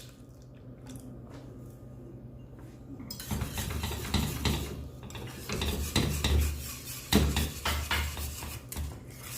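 A utensil stirring in a metal saucepan of thickening milk custard, clinking and scraping against the pan in quick repeated strokes. It starts about three seconds in, after a few faint clicks.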